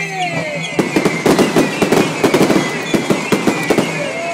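Fireworks going off: a dense run of bangs and crackling pops that thickens about a second in, with whistles gliding in pitch, one falling at the start and one rising near the end.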